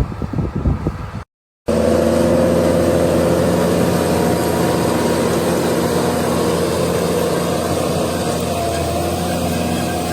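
Irregular clattering knocks, cut off abruptly about a second in, then a heavy engine running at a steady speed.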